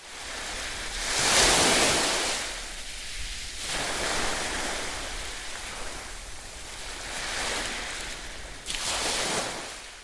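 Surf breaking and washing on a sandy beach, the wash swelling about a second in and again near the end.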